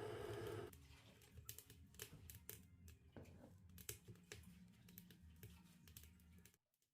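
Near silence with faint, irregular clicks and ticks.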